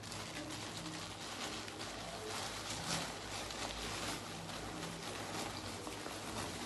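Plastic backing of an adult disposable diaper rustling and crinkling as it is pulled and fitted around a small dog, with a louder crinkle about three seconds in.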